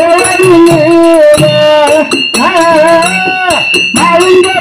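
Kannada dollina pada folk singing: a voice holds long, gently bending sung notes over small brass hand cymbals (taala) struck in a steady rhythm.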